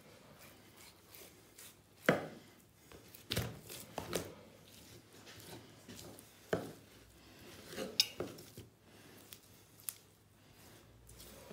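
Knife knocking on a cutting board about six times at irregular intervals while a pork leg is cut apart, separating the fiocchetto from the culatello.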